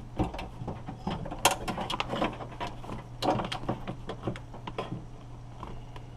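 Irregular clicks and rattles of a door lock actuator, latch and its cables being handled and fitted inside a car door, loudest and busiest in the middle.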